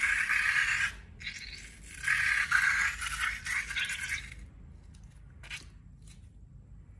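Scraping and rattling in two spells: the first stops about a second in, and the second runs from about two to four and a half seconds. A few light clicks follow.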